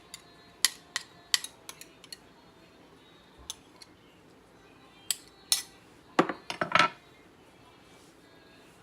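Kitchen utensils clinking and knocking against dishes in a run of separate sharp clicks, with a louder rapid clatter about six seconds in.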